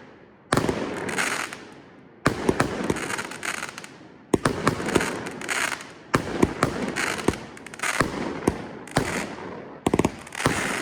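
Consumer firework cake firing a string of shots about a second apart, each a sharp bang followed by a fading crackle.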